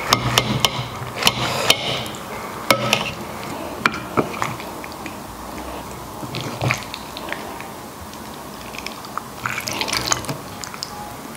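Stewed pork knuckle being pulled apart by hand and with chopsticks in its braising sauce: wet squelches and sharp little clicks from the soft skin, meat and sauce. They come thickest in the first few seconds and again near the end.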